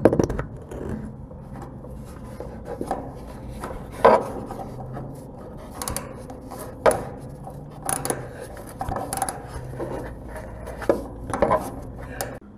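Combination wrench clicking and scraping on the nut of a transfer tank's hold-down bolt as it is tightened: irregular metal clicks and knocks, the sharpest near the start, about four seconds in and about seven seconds in.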